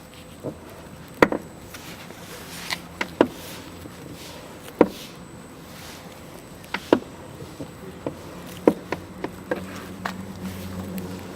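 Sharp clicks and knocks, about a dozen at irregular intervals, over a faint low steady hum: a Chevrolet Lacetti door check clicking and crunching as the door is worked, the fault the repair is meant to cure.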